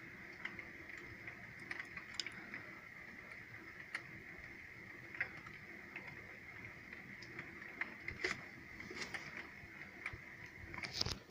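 Steady rain with scattered, irregular ticks of drops landing close by, a few louder ones near the end.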